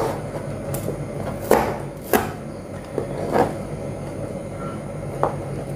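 Kitchen knife chopping shallots on a plastic cutting board: a handful of separate, unevenly spaced knocks of the blade on the board.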